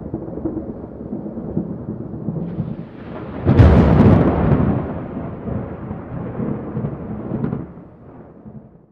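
Thunder: a low rumble, then a loud thunderclap about three and a half seconds in that rolls on and fades out near the end.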